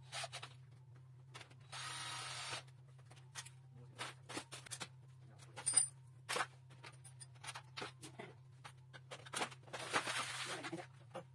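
Aluminum closet drawers and their runners being fitted, giving scattered clicks and knocks, a sharp metallic click about six seconds in, and two short rushing noises of about a second each, one near the start and one near the end. A steady low hum runs underneath.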